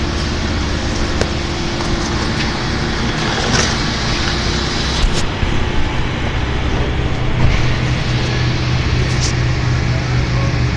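Car engine idling steadily with a low hum, with a few light clicks about 1, 3.5 and 5 seconds in.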